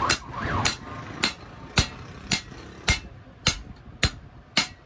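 Hand hammer striking a chisel held against a steel spade blade on an anvil, a steady beat of sharp metallic strikes a little under two a second. A wailing siren fades out about half a second in.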